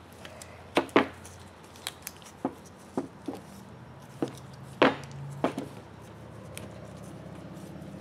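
Handling noise as a new split sway bar bushing is worked onto a truck's front sway bar on a workbench: a string of sharp clicks and knocks, the loudest about a second in and just before five seconds in. A low steady hum comes up near the end.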